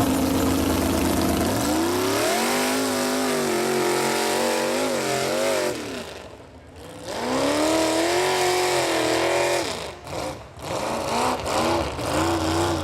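Chevy mega truck engine revving hard under load, its pitch climbing and wavering through a long pull, cutting back briefly about halfway, then climbing again before shorter, choppy blips of throttle near the end.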